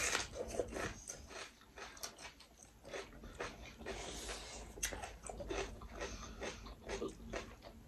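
Close-up eating sounds: chewing and lip smacks with many small scattered clicks, soft and irregular.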